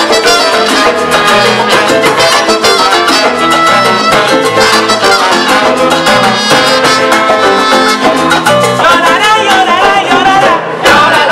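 Live salsa band playing, with congas, timbales and trumpets. The music breaks off briefly near the end and the band comes straight back in.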